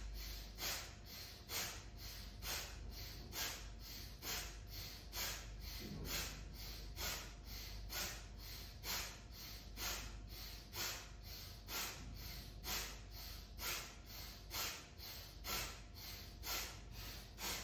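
A woman breathing rhythmically and forcefully through the nose during a Kundalini yoga exercise, quick even breaths in and out at about two a second.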